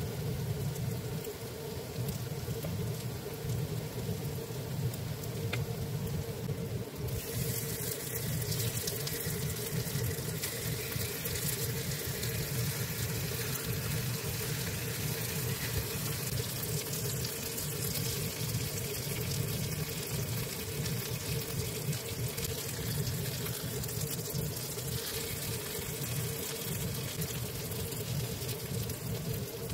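Shrimp and zucchini pancakes sizzling as they fry in a pan, a steady hiss that gets louder and brighter about seven seconds in, over a steady low hum.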